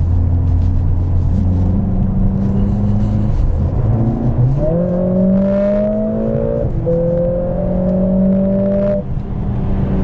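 Mercedes-AMG 45's 2.0-litre turbocharged four-cylinder engine heard from inside the cabin under hard acceleration. After a steady low drone, its pitch climbs from about four seconds in, drops sharply at a quick upshift, climbs again, and falls once more near the end.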